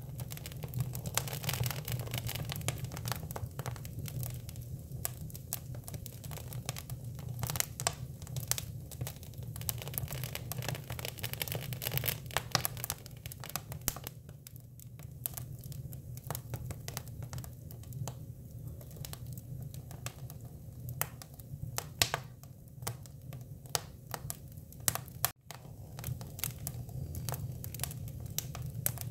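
Hinoki (Japanese cypress) wood burning in a fire, crackling with irregular sharp pops and snaps over a steady low rumble.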